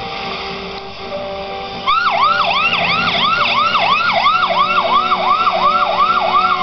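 Ambulance siren starting about two seconds in, yelping in quick, evenly repeated falling sweeps, nearly three a second.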